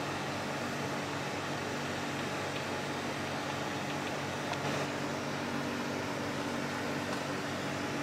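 Steady low mechanical hum, like a running appliance or fan, with a faint brief noise about four and a half seconds in.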